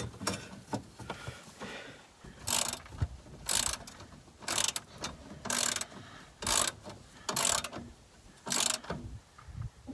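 Hand ratchet wrench being worked in strokes, its pawl clicking in a burst about once a second, seven times.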